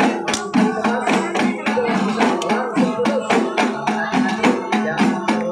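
Dikir group beating terbang frame drums in a fast, steady rhythm, with chanted singing over the drumming.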